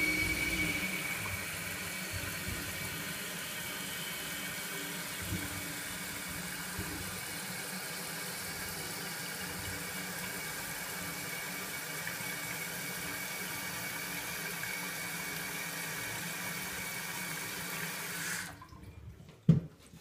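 Toilet tank refilling after a flush: water hissing steadily through the fill valve into the open tank, with a faint high whistle that fades. The valve shuts off abruptly about eighteen seconds in as the tank reaches its fill level, and a single thump follows near the end.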